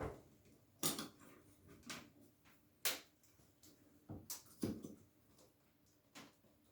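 Hand tools scraping, clicking and knocking irregularly against a chrome shower valve front plate as the blade works at the silicone sealant holding it to the tiles. There are about eight short sounds at uneven intervals.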